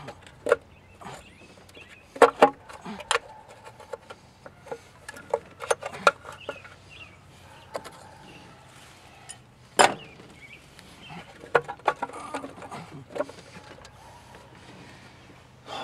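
Irregular metallic clicks and knocks as tools and bolts are worked at the valve cover of a small-block Chevy 305 V8 to take it off. The engine is not running. Two louder knocks come about two seconds in and near the middle.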